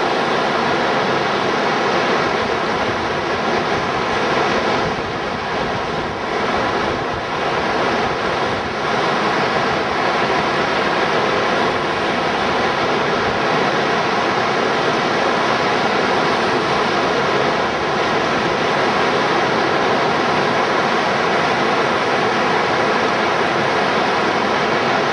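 Steady, loud rush of white water at a river standing wave, the current pouring over and breaking on itself.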